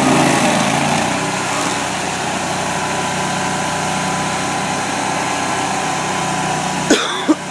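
Stump grinder's small gasoline engine running steadily. About seven seconds in the sound breaks off abruptly, with a few sharp clicks.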